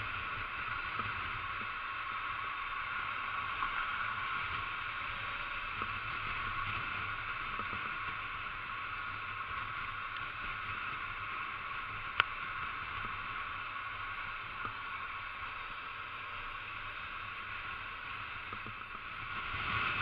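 Steady, muffled rush of motorcycle riding noise picked up by a camera on the bike during a slow ride through traffic, with a low rumble underneath. One sharp click about twelve seconds in.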